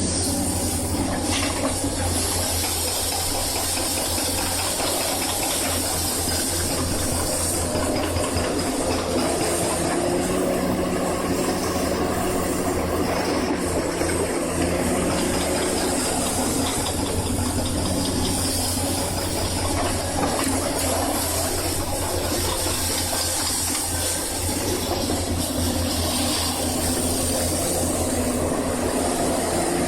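Excavator's diesel engine running steadily throughout, with a low, rapid throb.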